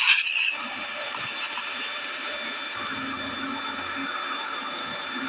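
Steady hiss of outdoor background noise, with a short rustling burst right at the start.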